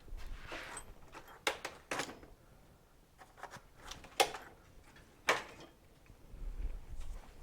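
Small metal parts and a hand tool being handled while a carburetor needle jet is worked into its bore: a few sharp clicks and taps, the loudest about four and five seconds in, with a soft rustle near the start.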